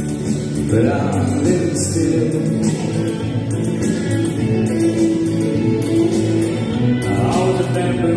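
Music: a song's backing track with long held chords, and a man singing into a microphone.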